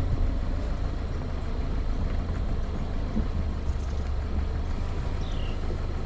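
2020 Subaru Outback driving slowly on a dirt trail: its engine and drivetrain give a steady low rumble. A short, high, falling chirp sounds near the end.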